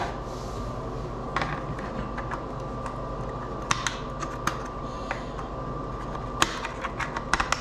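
Scattered light clicks and taps of a plastic solar post light housing being handled, with a small cluster of clicks near the end, over a steady hum.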